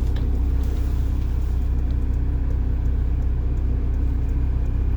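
1990 Blue Bird All American's rear-mounted diesel engine running steadily with a low hum, heard from inside the bus, with a few faint clicks.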